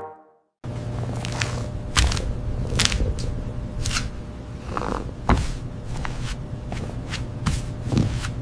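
Kitchen handling noises: scattered sharp clicks and knocks, with some shuffling and scraping, over a steady low hum. They start about half a second in.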